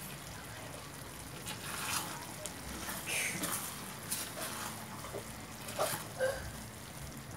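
A spoon stirring a saucy curry in a stainless steel pan, with several separate scrapes and clinks against the pan and a wet sloshing of the sauce.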